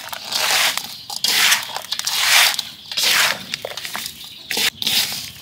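Hands mixing small salted fish with roasted rice, galangal, chili and sugar to make phaok: irregular wet, gritty mixing strokes, a few each second.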